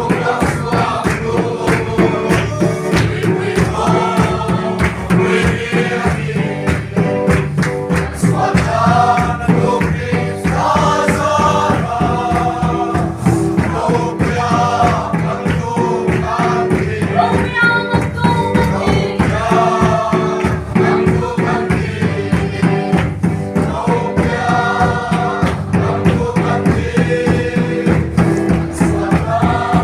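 A group of voices singing a gospel song together over a steady, rhythmic percussion beat.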